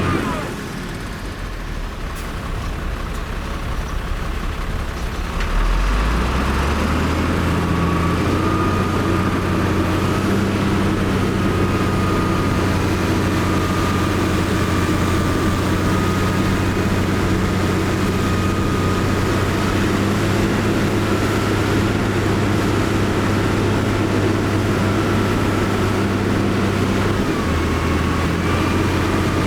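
Heavy diesel engine of earthmoving machinery running at low load, then revving up about six seconds in and holding a steady working note with a thin high whine on top.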